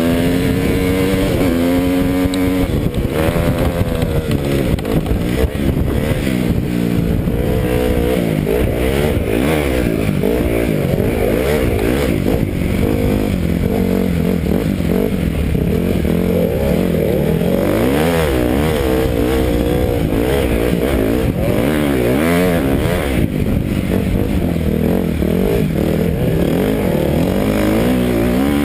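Dirt bike engine being ridden hard, its pitch rising and falling continually as the throttle is opened and closed.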